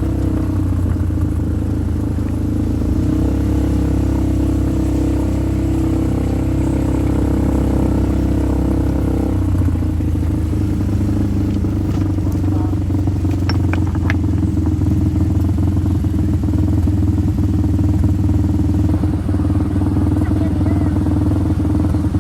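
Small off-road vehicle's engine running steadily under way, its note changing about nine seconds in. A few sharp clicks follow shortly after.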